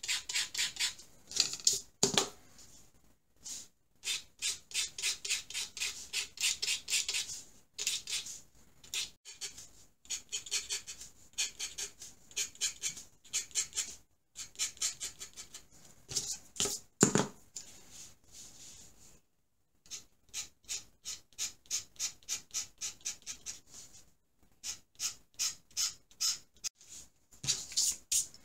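A scraperboard tool's blade scratching across a clay-coated scratchboard in quick short strokes, several a second, in runs with brief pauses between them. Two louder knocks, about two seconds in and again about seventeen seconds in.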